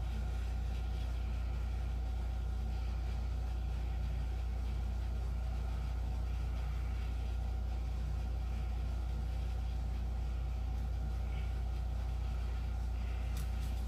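Steady low hum with a faint even hiss: room tone, unchanging throughout.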